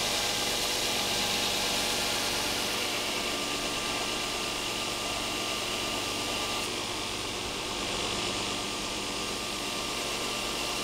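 Belt grinder running with a fairly fresh Norax engineered abrasive belt, a steel knife blade held against it at the platen: a steady grinding hiss over the motor's hum.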